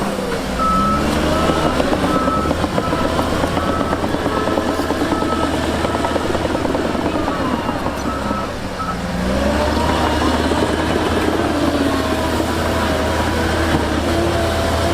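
Heavy diesel earthmoving machinery running, the engine note rising and falling as it is worked, with a vehicle's reversing alarm beeping at an even pace that stops about nine seconds in.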